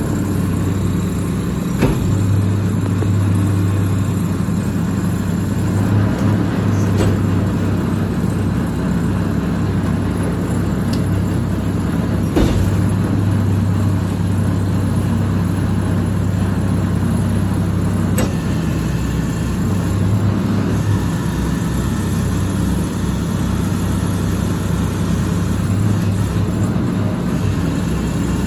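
Mack MR rear-loader garbage truck's diesel engine running steadily while the McNeilus body's hydraulic container lift holds a commercial dumpster tipped over the hopper. A few sharp knocks and bangs from the container and its contents break through the engine hum.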